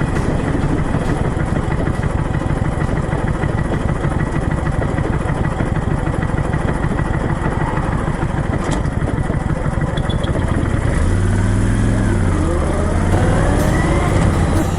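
Motorcycle engine running while riding, with heavy wind noise; in the last few seconds the engine's pitch drops, then rises and falls as the revs change.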